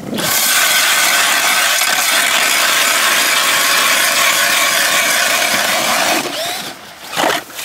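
Cordless drill spinning a Nero ice auger through ice. The motor whines steadily while the auger blades grind and scrape the ice, then it stops about six seconds in, with a brief rattle shortly after.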